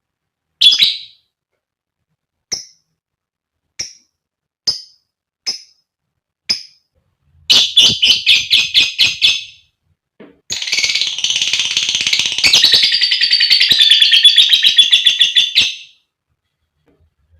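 Female lovebird calling: six single sharp, high chirps spaced about a second apart, then a fast run of chirps, then a continuous shrill chatter lasting about five seconds that stops abruptly.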